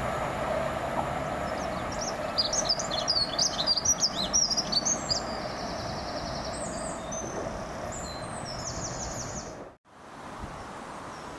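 A songbird singing loudly, quick chirps and then trilled phrases, over the steady, fading noise of a Class 70 diesel locomotive and its hopper wagons pulling away. The sound breaks off about ten seconds in, leaving only a faint steady background.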